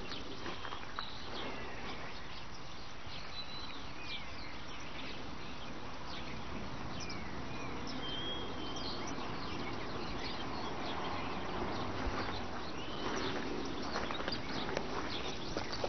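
Outdoor field ambience: scattered short bird chirps and whistles over a steady background hiss, with a few soft knocks near the end.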